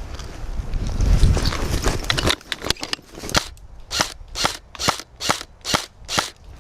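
Airsoft rifle firing single shots, about two a second, six sharp snaps in a row in the second half, after a few scattered clicks. Wind rumble on the microphone for the first two seconds.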